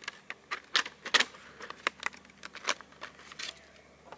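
Irregular sharp clicks and taps of small hard objects being handled, more than a dozen in a few seconds, the loudest just under a second and just over a second in.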